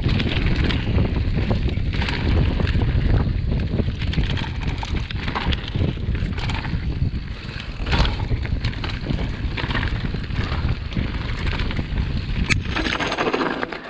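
Mountain bike riding down a rough, stony dirt singletrack: steady wind buffeting on the rider-mounted camera's microphone, with frequent knocks and rattles from the bike over the stones. A sharp click near the end as the ride slows and it goes quieter.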